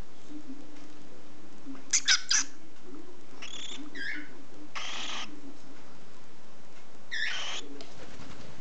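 Cockatiel chick calling in short, scattered bursts: three quick sharp chirps about two seconds in, a few more a second later, a longer raspy call around the middle and another near the end.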